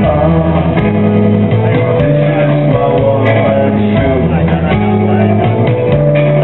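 Rock music with guitar and a steady bass line changing notes about every half second.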